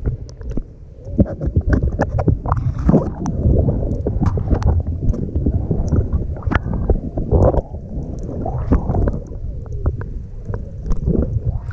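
Water sloshing, gurgling and splashing against a GoPro camera housing as it dips through the surface and goes underwater. It makes a loud, churning rumble broken by many sharp pops and clicks.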